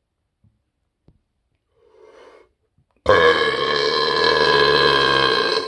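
A man's long, low-pitched burp, starting suddenly about three seconds in and held for over two seconds, preceded by a faint breath.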